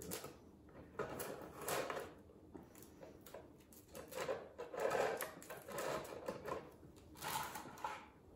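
Clear plastic packaging crinkling and rustling in irregular bursts as small toy accessories are worked out of it by hand.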